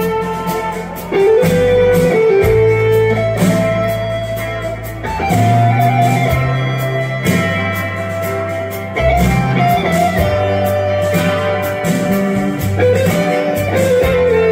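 Live rock band playing an instrumental passage: a lead electric guitar holding and bending long notes over bass guitar and drums.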